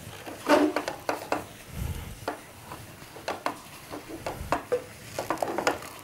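A wooden cooking stick stirring and pressing stiff ugali (maize-meal dough) in an aluminium pot. The stick makes a run of irregular knocks and scrapes against the pot.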